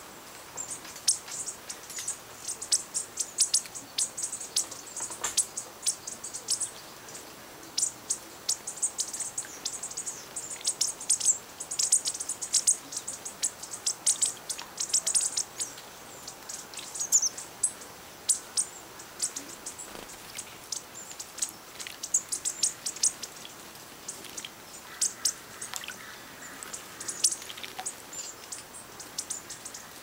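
A flock of small songbirds twittering: many short, thin, high-pitched chirps in quick irregular runs, with brief lulls.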